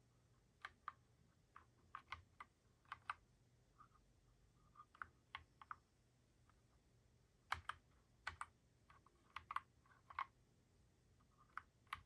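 Keys of a Wombat Coleus mechanical keyboard pressed a few at a time, giving quiet, sharp clicks in irregular small clusters rather than steady typing. The presses are key combinations that switch the keyboard's backlight modes, and they are busiest in the second half.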